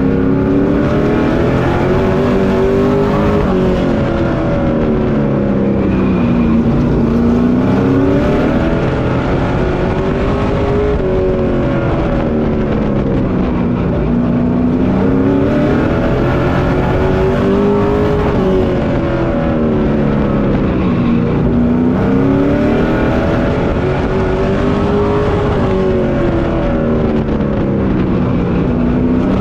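Pro Truck race engine heard from inside the cab at race speed. Its pitch rises and falls in a smooth wave about every six seconds as the truck accelerates and lifts around the short oval.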